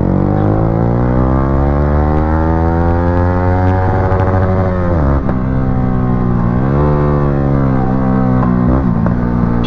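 Yamaha R15 V3's single-cylinder engine through an aftermarket exhaust, its pitch climbing slowly for a few seconds then dropping, then climbing and dropping again as the throttle is opened and closed.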